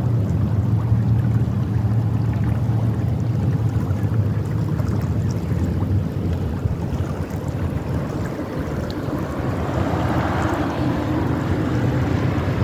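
Wind buffeting the phone's microphone in a steady low rumble, over the rush of flowing creek water, which grows a little louder about ten seconds in.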